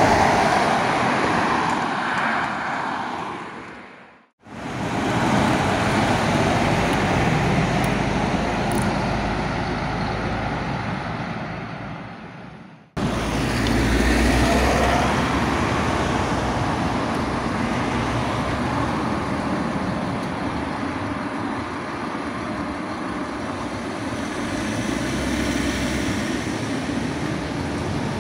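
Road traffic passing close by: a box van and cars going past with engine and tyre noise. The sound fades out and breaks off twice, about four seconds in and about thirteen seconds in, then the traffic noise starts again.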